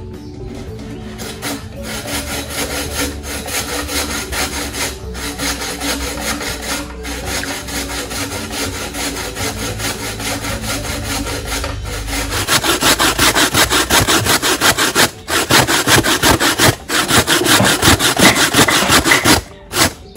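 Coconut flesh being grated by hand on a flat stainless-steel grater over a metal bowl, with quick, even rasping strokes. This is fresh coconut grated for coconut milk. The strokes grow much louder a little past halfway.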